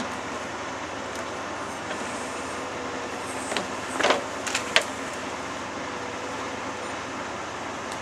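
CAT backhoe loader's diesel engine running steadily while it works its digging arm, stuck in mud. Partway through, a short cluster of sharp knocks stands out above the engine.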